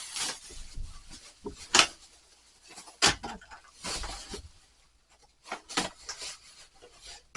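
Household items being handled and packed into a bag: scattered knocks and clicks with rustling between, the sharpest knocks about two, three and six seconds in.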